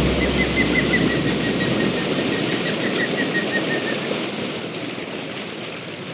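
Audience applauding, slowly fading, while the last low note of the music dies away in the first couple of seconds.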